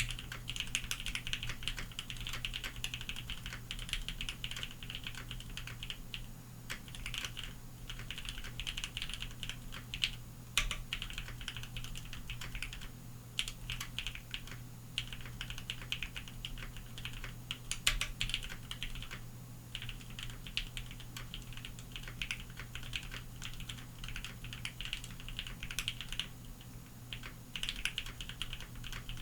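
Steady typing on a Bakeneko60 mechanical keyboard fitted with Lavender switches: a rapid stream of key presses with a few brief pauses. A steady low hum of background noise runs underneath.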